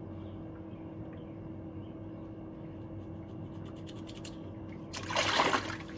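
Faint scratching as hardened gas residue is scraped off a pressure-washer carburetor part, over a steady low hum, with a louder rush of noise about five seconds in.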